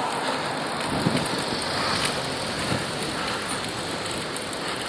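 Steady rushing noise of wind and road noise on an earpiece microphone while riding a bicycle through city traffic.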